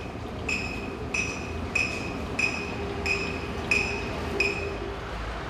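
A metallic clink ringing out at a steady pace, about seven strikes roughly two-thirds of a second apart, over a low farmyard background.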